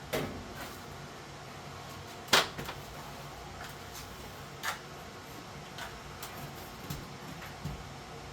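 Scattered knocks and taps from hand work on HVAC ductwork, with one louder knock about two seconds in.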